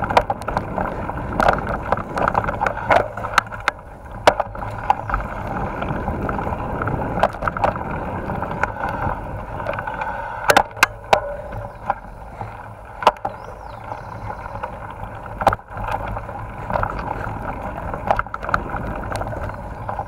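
Mountain bike running over a rough dirt forest trail, heard through the rider's action camera: a steady rumble of tyres and drivetrain with frequent sharp rattles and knocks from bumps, roots and the camera mount.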